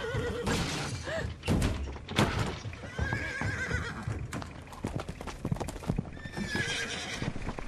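A horse whinnying several times, with two loud knocks early on and then a quick clatter of hooves on the road as it runs loose from its trailer.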